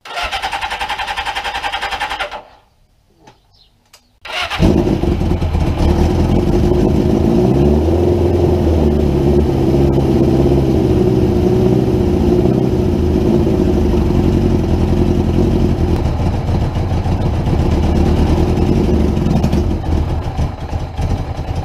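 Suzuki GS550's air-cooled inline-four engine being cranked on the electric starter, stopping after about two seconds without catching; cranked again about four seconds in, it fires and keeps running, the engine speed wavering a little at first and then holding steady.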